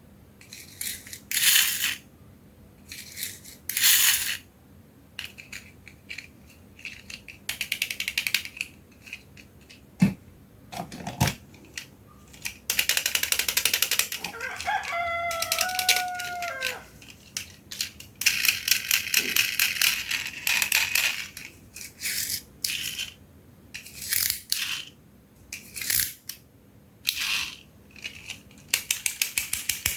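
Plastic toy cars rattling and clattering down a plastic slide in repeated bursts, some as quick runs of clicks. A rooster crows once in the background about halfway through.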